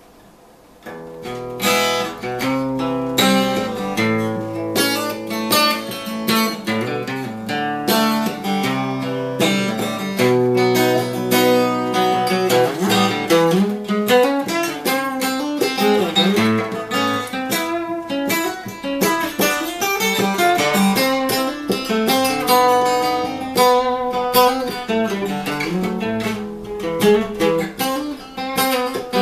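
Acoustic guitar intro, picked and strummed chords, starting about a second in.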